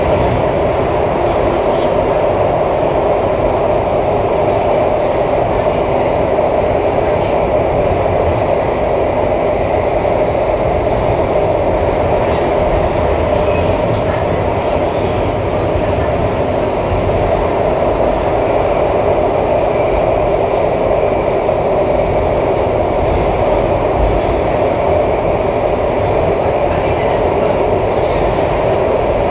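Singapore MRT C751A metro train with IGBT-VVVF traction, heard from inside the passenger car running through a tunnel. The steady, loud rumble and roar of wheels on rail hold an even level throughout, with no speed-up or slow-down.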